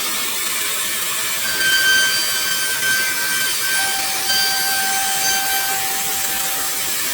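CNC router spindle cutting wood: a steady high whine over the hiss of the bit, with a lower steady tone joining about halfway through.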